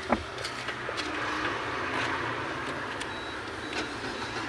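A sharp click, then a Ford Figo's starter cranking the engine, which does not start: the fuel pump gets no current because its relay has failed.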